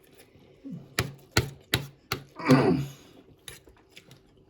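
Eating noodles from a bowl: four sharp clicks of utensils against the dish in quick succession, then a brief, louder voice-like sound from one of the eaters.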